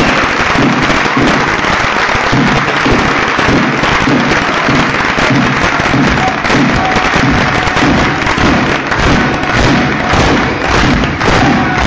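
Crowd clapping loudly and continuously, a dense patter of claps over a beat of low thumps about twice a second, turning into sharper rhythmic clapping near the end.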